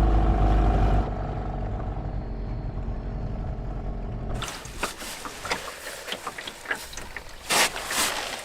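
A boat motor running steadily, its hum dropping abruptly about a second in and going on more quietly. From about four seconds in come scattered clicks and knocks of gear being handled in the boat, the loudest near the end.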